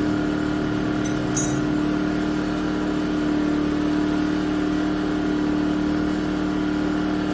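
Yamaha EF2000iS inverter generator's single-cylinder engine running steadily on propane through its Tri-Fuel demand regulator, holding an even pitch. A few light clicks about a second in.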